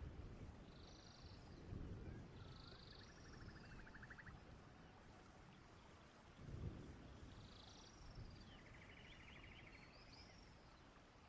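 Faint birdsong: scattered short high chirps, with a rapid buzzy trill about three seconds in and again near the end. There are a couple of dull low thuds.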